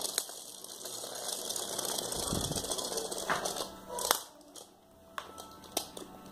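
Small toy spinning top whirring and rattling on a ceramic tile floor, with a few sharp clicks and knocks from handling near the middle and end.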